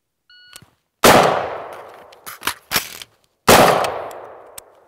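Two AR-15-type rifle shots about two and a half seconds apart, each trailing off in a long echo. Between them come sharp metallic clicks of a speed reload: the first shot fires the magazine's last round and locks the bolt open, and a fresh magazine is inserted and the bolt released before the second shot.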